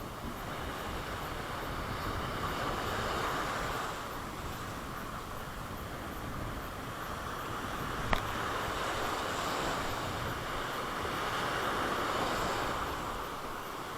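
Sea waves washing up on the beach, the surf swelling twice, with wind rumbling on the microphone. A single sharp click about eight seconds in.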